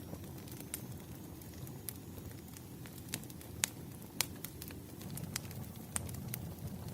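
Wood fire crackling: scattered sharp pops and snaps, a few louder ones in the middle, over a low steady rumble of burning logs.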